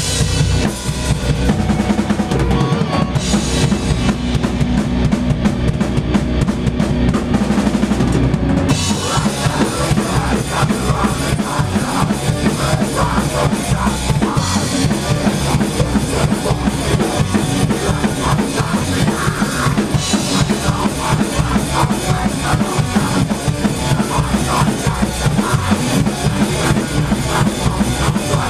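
A rock band rehearsing, with a drum kit played hard (kick and snare prominent) under other instruments. The sound gets fuller about nine seconds in.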